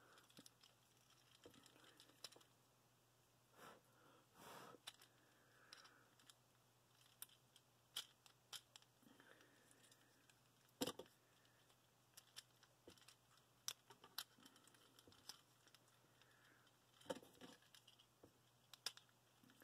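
Faint, scattered clicks and taps of a plastic Transformers Springer action figure being handled, its parts rotated and pegged together during transformation. The clicks are sparse and brief over near silence, a few slightly louder about eleven seconds in and near the end.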